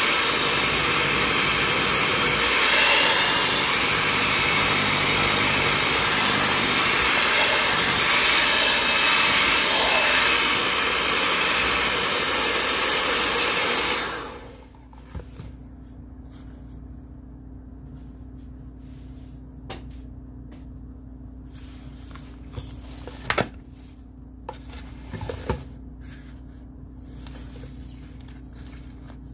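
Electric mixer running steadily, then switched off about halfway through. After that a low steady hum remains, with a few light knocks.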